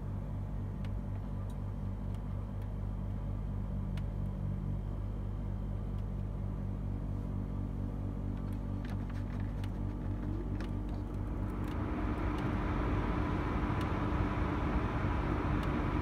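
Stiebel Eltron ACPS 14 heat pump air conditioner running after a defrost cycle and starting its heating mode: a steady low hum with a few light ticks. About twelve seconds in, a rushing hiss with a faint steady tone comes in and it grows louder.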